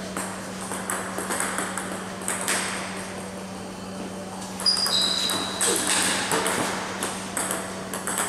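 Table tennis training: table tennis balls clicking off bats and the table in quick exchanges, with a quieter spell about three to four seconds in. Two short high squeaks sound about five seconds in.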